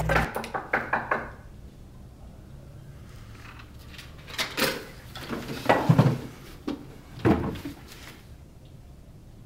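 Quick plastic clicks as a desk telephone's cradle hooks are pressed and the handset is put down. About four seconds later come several dull, heavy knocks and thumps at a door.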